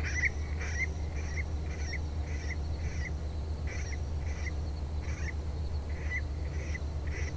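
Electronic predator call playing the "Sticky Rat" sound, a rat distress call: short, rising squeaks repeating about twice a second over a steady low hum.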